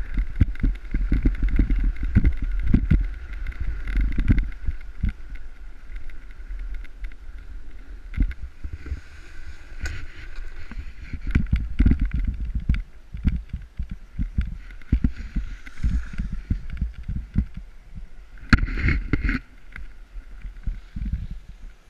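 Snowboard sliding and scraping over snow while riding downhill, with wind buffeting a body-worn camera's microphone in gusts and uneven thumps. A faint steady higher hum runs underneath, and a short cluster of sharper knocks comes near the end.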